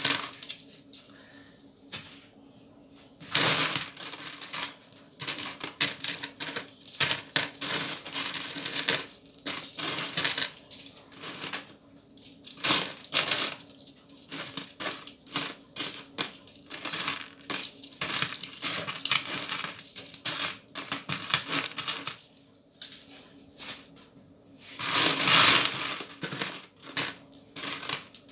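Small copper coins clinking and clicking against each other as they are picked over and dropped one by one in a plastic bowl. Two louder rattling spells, about 3 s in and again near the end, as a mass of coins shifts in the bowl.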